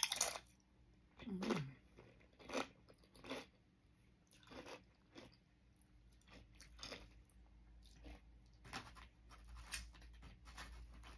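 Doritos tortilla chips being bitten and chewed close to the microphone. The loudest crunch comes at the very start, followed by irregular crisp crunches about a second apart.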